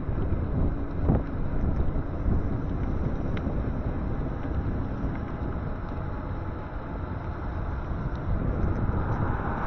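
Wind buffeting the microphone on a moving e-bike: a steady low rumble mixed with road and traffic noise, with a hiss swelling near the end.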